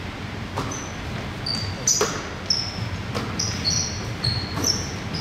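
Basketball bouncing on a hardwood gym floor a few times, with many short, high-pitched squeaks of basketball shoes on the court as players cut and stop.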